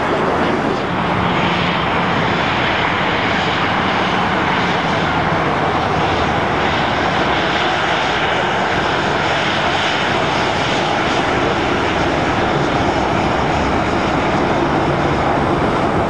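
Boeing 737 jet airliner's twin turbofan engines running, a loud, steady noise with a faint low hum under it.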